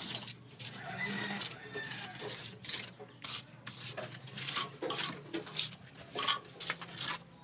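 Trowel and hand rubbing and scraping wet cement mortar along the edge of a concrete door jamb, in short irregular strokes.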